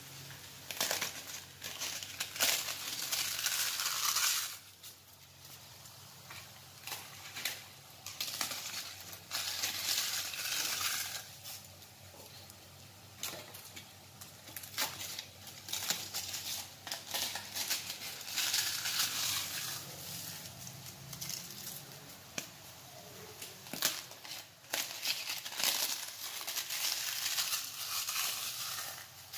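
Roasted papads being crushed and crumbled by hand, a brittle crackling and crunching that comes in spells of a few seconds with quieter gaps between.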